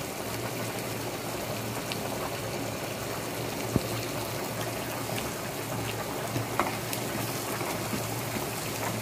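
Mutton pickle bubbling in oil in an aluminium pot, a steady simmering hiss as the added lemon juice cooks off. A sharp click comes a little under four seconds in, and fainter ticks follow later.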